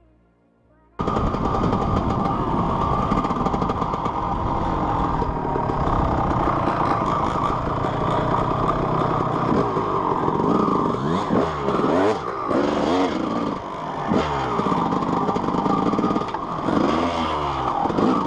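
Yamaha YZ250 two-stroke dirt bike being ridden, heard from the rider's helmet camera, its engine revving up and down again and again as the throttle is worked. The sound comes in suddenly about a second in, after a moment of near silence.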